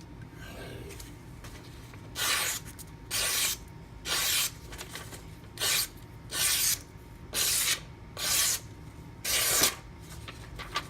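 Knife blade of Maxamet steel being stropped on a strop loaded with 2-micron CBN emulsion. About eight strokes start some two seconds in, each a short rub lasting about half a second, roughly one a second.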